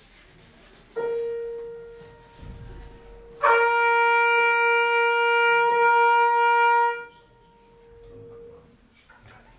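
A trumpet and a grand piano: a piano note sounds about a second in and fades, then the trumpet enters with one long, loud held note of about three and a half seconds over the piano, cutting off about two seconds before the end, while the piano tone dies away.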